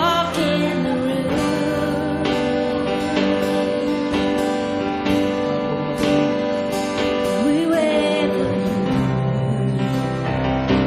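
Live worship music: a strummed acoustic guitar and sustained keyboard chords, with a voice singing briefly at the start and again about eight seconds in.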